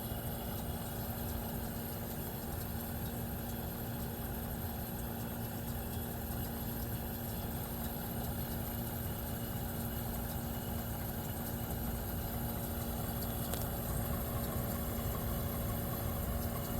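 A 1973 Westinghouse 25-pint dehumidifier running, a steady hum with a few fixed tones over a low rumble. Its compressor is cooling well enough to frost the evaporator.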